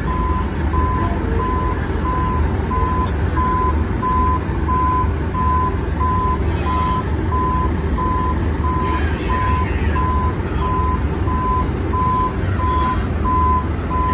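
A garbage truck's back-up alarm beeps steadily, about two beeps a second, over the truck's engine running.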